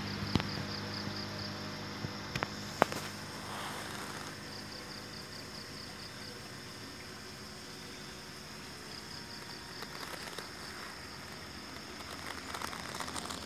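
Roadside ambience: a passing vehicle fading away over the first few seconds, then insects chirping in repeated runs of rapid, high-pitched pulses, with a few sharp clicks early on.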